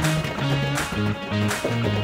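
Background music: upbeat strummed guitar over a bass line with a steady beat.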